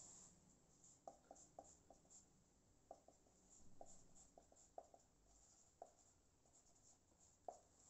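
Faint marker-on-whiteboard writing: a string of short squeaks and taps as the marker forms letters.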